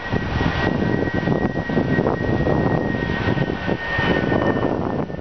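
Model train running on the layout: a steady high motor whine over continuous rumbling running noise.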